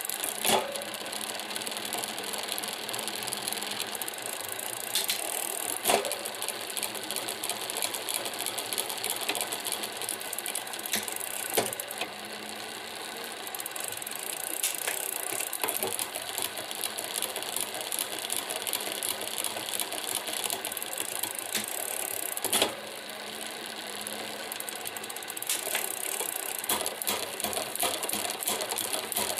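Drivetrain of a Tern Verge P20 folding bike turning, its rear derailleur giving a continuous fast rattle, with a few sharper clicks now and then. The rattle is a noise that appeared after the bike was cleaned.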